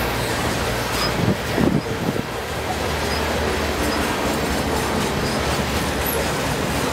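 Freight cars of a long train rolling past close by: a steady rumble of steel wheels on the rails, with a few louder thumps about one to two seconds in.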